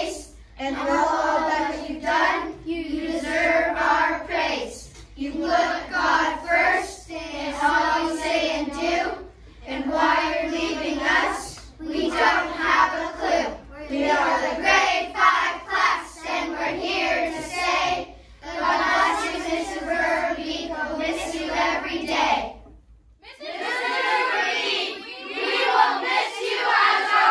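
A class of children singing together in phrases with short breath pauses between them. About 23 seconds in the song breaks off and a second group of children starts singing.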